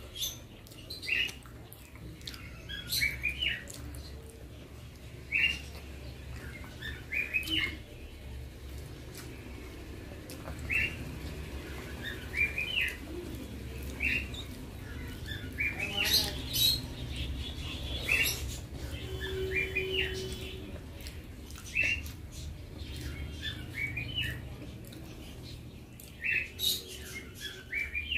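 Small birds chirping in short clusters of two to four chirps every second or two, over a steady low hum, with a few sharp clicks about halfway through.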